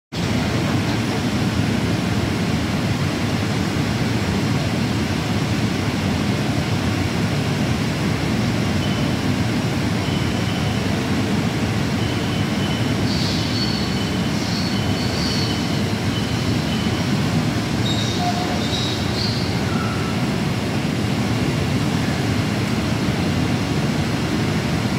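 DMG Gildemeister CTX 400 S2 CNC turning lathe running behind its closed guard door: a steady, even mechanical noise. A few faint high squeaks come a little past the middle.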